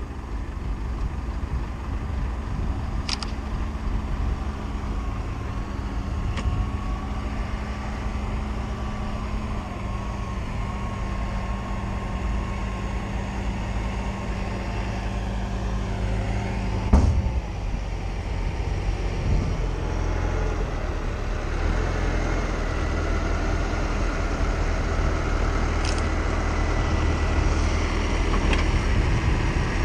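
Old Ursus tractor's diesel engine running steadily while towing a trailer of hay bales. A single sharp knock comes about halfway through.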